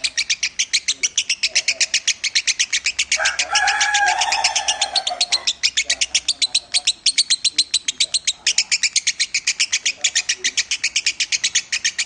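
Fischer's lovebird singing a long, unbroken string of rapid high chirps, about eight a second, the continuous song that kicau hobbyists call a 'Minor' voice.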